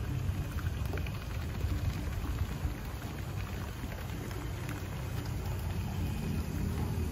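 Steady outdoor noise by a pond: a low rumble of wind and handling on a phone microphone, under a light even patter of water.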